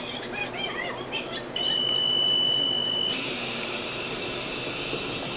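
Train door-closing warning on a Taiwan Railways commuter train: a steady high beep for about a second and a half, then a click and a harsher buzzing tone that sounds as the doors begin to close.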